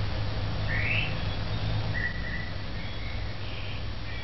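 Birds calling: a few short whistled chirps, one rising about a second in and a flatter one near the middle, over a steady low hum.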